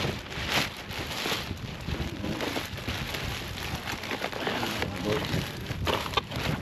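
Irregular rustling, scraping and light knocks of household junk being handled and moved about while a kerbside pile is sorted through.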